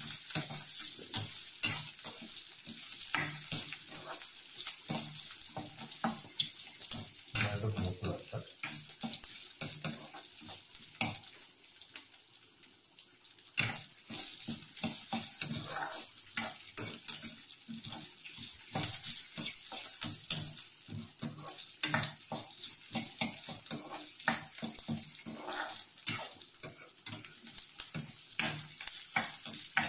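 Chopped garlic, ginger, green chillies and dried red chillies sizzling in hot coconut oil in a metal kadai, a steady hiss, while a spoon stirs them with frequent scrapes and clicks against the pan.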